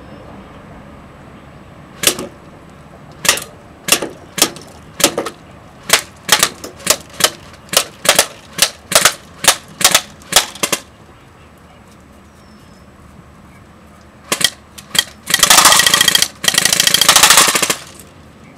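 JG G36K airsoft electric rifle firing: about twenty single semi-auto shots in a quick, uneven string, a pause, a few more single shots, then two full-auto bursts of about a second each near the end, the loudest part.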